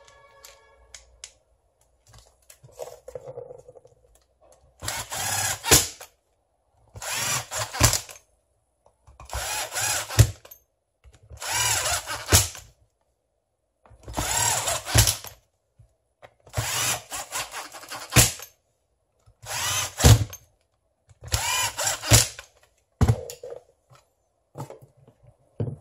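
A cordless power tool's motor run in about eight short trigger pulls, each a little over a second long and about two seconds apart, with a few shorter blips before and after.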